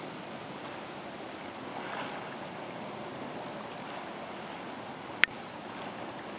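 Steady rushing of water from a line of churning white water across the river, which the paddler guesses may come from a broken pipe under the river. A single sharp click about five seconds in.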